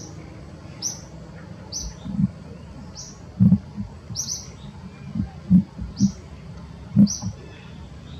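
A bird repeats a short, high chirp about once a second against steady outdoor background noise. Several dull low thumps come in the middle and are louder than the chirps.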